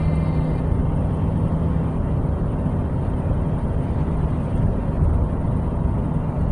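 A low, steady rumbling drone with a hum that fades about two seconds in and returns near the end.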